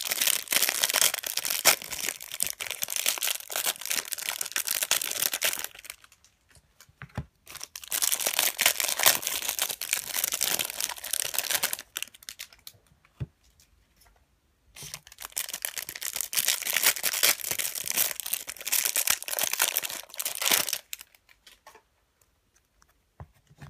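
Plastic wrapping on a trading-card pack being torn open and crinkled by hand: three long stretches of dense crackling, each several seconds long, with short pauses between them.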